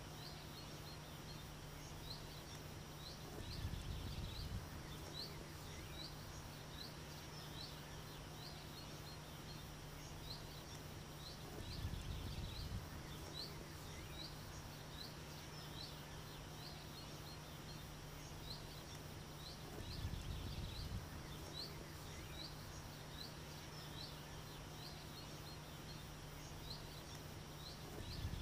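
Countryside ambience: a short, high chirp repeated steadily, a little more than once a second, over a faint low hum, with a dull low rumble about every eight seconds.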